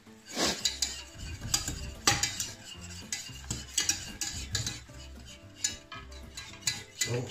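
A utensil stirring and scraping in a pan on the hob, with frequent sharp clinks against the pan and some sizzling.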